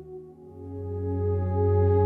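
Ambient music in a Korean traditional-fusion style: a held chord thins away, then about half a second in a new sustained chord with a deep bass note swells in, growing steadily louder.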